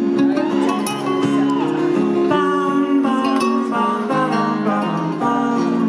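A live band playing a song's instrumental intro, led by strummed acoustic guitar with other plucked strings ringing out in changing chords.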